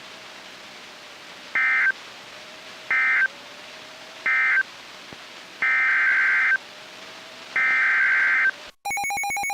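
Emergency Alert System SAME data bursts: three short digital bursts, the end-of-message code that closes the warning, then two longer header bursts that open the next alert. Near the end the EAS two-tone attention signal starts, a steady harsh tone.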